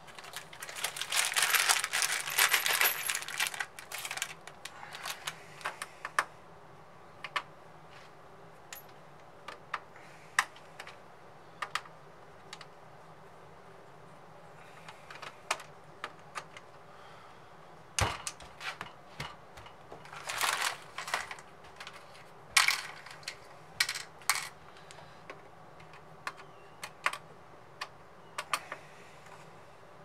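Small screwdrivers and hand tools being rummaged through and handled: a dense clatter of clicks in the first few seconds, then scattered clicks and taps, with a sharper knock about eighteen seconds in and further bursts of clicking soon after.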